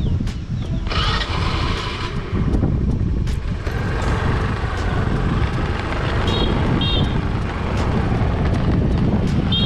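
Hero Honda Pleasure scooter being ridden along the road: its engine running under steady wind and road rumble. A hiss comes about a second in, and a few short high chirps follow later.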